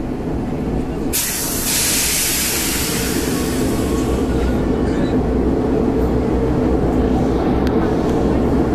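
Athens Metro Line 1 train running, a steady low rumble that grows slightly louder, with a sudden burst of air hiss about a second in that fades away over a few seconds.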